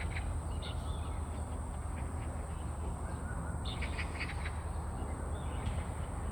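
Zitting cisticola giving short, sharp clicking calls: a few near the start, a quick run of them about halfway through, and one more near the end. Underneath runs a steady low rumble, the loudest sound, and a thin steady high-pitched whine.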